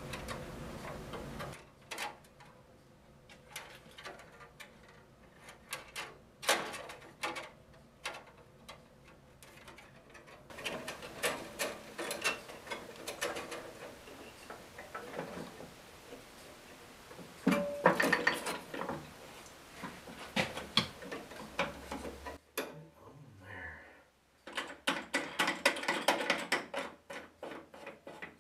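Irregular clicks, taps and knocks of hands working the metal and plastic parts of a small 9-inch band saw: the blade guard and the lower wheel. A cluster of louder knocks comes about two-thirds of the way through, and a run of quick ticking near the end.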